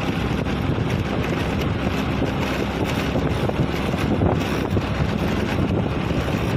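Steady rush of wind buffeting the microphone of a moving vehicle, over the low noise of the vehicle and road.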